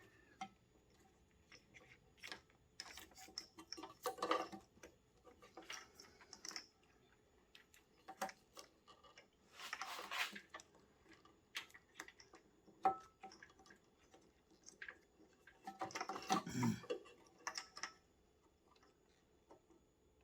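Hands working plastic motorcycle wiring connectors: scattered faint clicks and ticks as the connector halves are handled and pushed together, with a longer rustle about halfway and another near the end.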